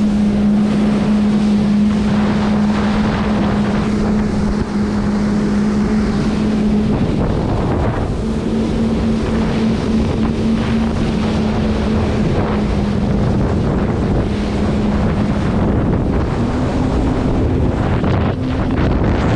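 Jet ski engine running at speed with a steady drone, over the rush of water spray and wind buffeting the microphone. The engine note drops out for about a second partway through and steps up slightly in pitch near the end.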